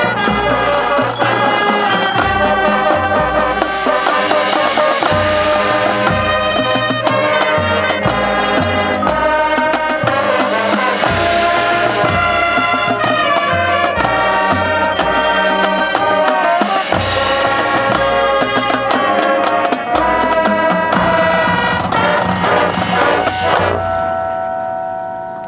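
High school marching band playing: brass (trumpets, trombones, sousaphones) holding chords over a steady drumline beat of snare and bass drums. The music gets quieter near the end.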